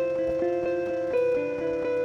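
Instrumental background music: sustained pitched notes, with a change of chord about a second in.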